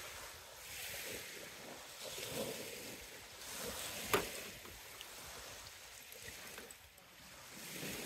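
Strong wind blowing in gusts across the microphone, swelling and fading. About four seconds in comes one sharp clink as a glass sake bottle is set down on the metal camp table.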